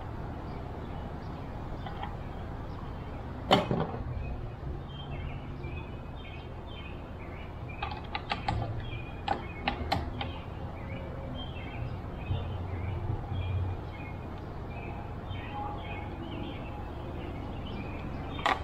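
Scattered metal clicks and knocks from hand tools putting in and tightening the bolts of a side-by-side mirror mount. There is one sharp knock about three and a half seconds in and a cluster of clicks about eight to ten seconds in, over a steady low hum.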